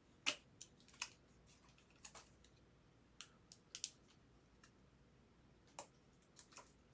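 Faint, scattered light clicks and flicks of trading cards being handled and flipped through, about a dozen sharp ticks at uneven intervals, the loudest just after the start.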